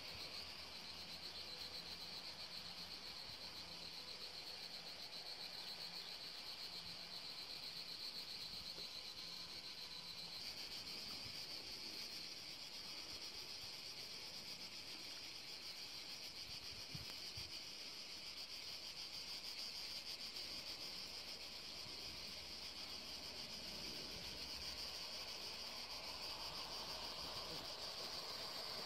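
Insects shrilling steadily in a high, continuous chorus, a little louder from about ten seconds in, with a faint low hum underneath.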